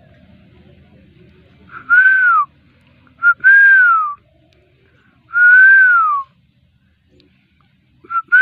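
A person whistling four times, each whistle rising slightly and then gliding down, some with a short pip just before.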